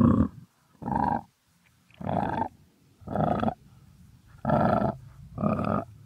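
Crocodile grunting: six short, rough grunts about one a second.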